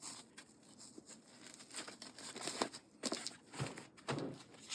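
A roll-up motorcycle tool kit being rolled up: rustling of the pouch with the tools inside knocking together several times, louder toward the end.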